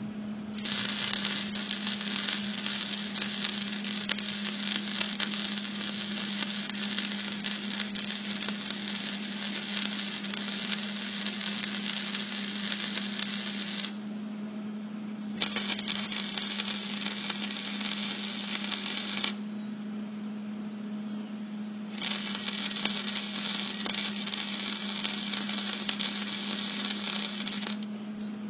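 Electric arc welder crackling and sizzling as beads are laid, in three long runs of about 13, 4 and 6 seconds with short pauses between, over a steady low hum.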